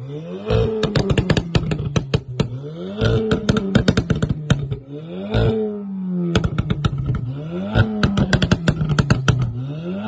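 Audi S3 8V's turbocharged 2.0 TFSI four-cylinder, on its Stage 2 tune, blipped from idle about four times, roughly every two and a half seconds. Each blip is followed by a rapid stream of exhaust pops and crackles as the revs fall back to idle.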